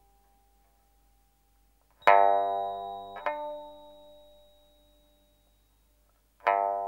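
Sparse film-score music on a plucked string instrument: after a near-silent pause, a loud plucked chord rings out about two seconds in, a second follows about a second later, and a third comes near the end, each left to ring and slowly fade.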